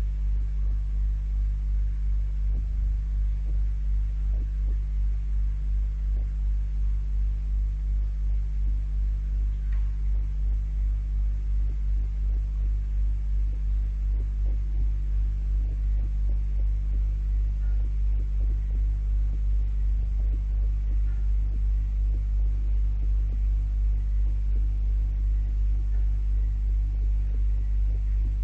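Pump running with a deep, steady hum that throbs in an even pulse, as water drains through the pipe.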